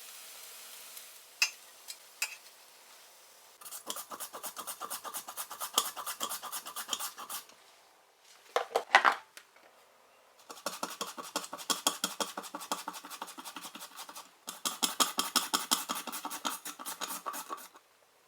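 Vegetables being shredded into thin strips on a julienne grater: three runs of fast, even rasping strokes, with one louder scrape about halfway through.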